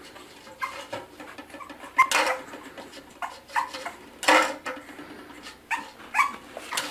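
A bulldog puppy gives short whimpers and yips, several times, while plastic cups are knocked and scraped over a tile floor. The loudest sounds come about two seconds in and again a little after four seconds.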